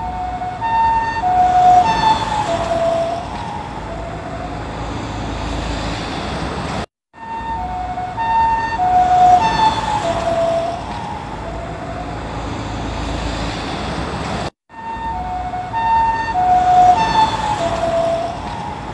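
Ambulance two-tone siren passing by, its alternating high and low tones dropping in pitch as it goes past (Doppler effect) and then fading, over road traffic noise. The same pass repeats three times, each separated by a brief silence.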